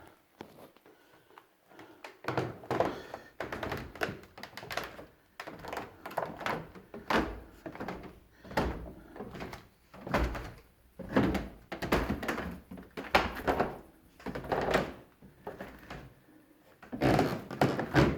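Irregular thumps and knocks, one or two a second, starting about two seconds in.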